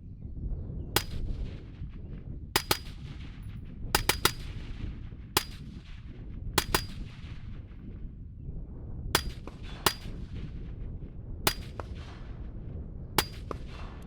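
About thirteen suppressed shots from a 5.56 rifle fitted with an Otter Creek Labs OCM5 suppressor. Some are single shots a second or more apart, and some come in quick pairs or threes, each with a short ringing tail. The owner describes this suppressor's tone as higher than the others, with a unique 'twang'. A steady low wind rumble runs underneath.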